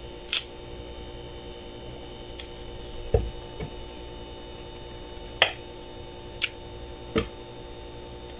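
Scattered clicks and soft knocks of a kitchen knife and pieces of overripe fruit against a wooden bowl as the fruit is cut up by hand, the loudest a dull thump about three seconds in. A steady electrical hum runs underneath.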